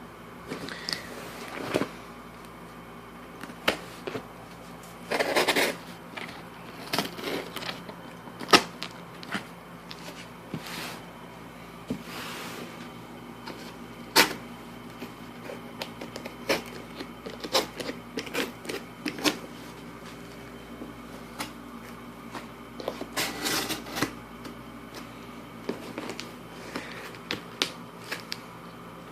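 A cardboard shipping box being opened by hand with a box cutter: scattered clicks, taps and short scrapes of cardboard and packing tape, with longer scraping, rustling passages about five seconds in and again near the end, over a faint steady hum.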